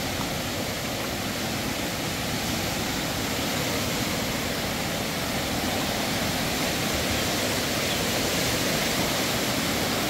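Rushing water of a river swollen by heavy rains, a steady, unbroken rush.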